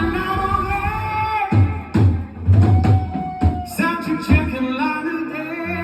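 Live band playing amplified music, with held sung notes in harmony over several drum hits.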